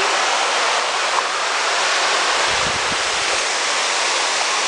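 Waterfall splashing down, a steady rushing hiss, with a brief low rumble about two and a half seconds in.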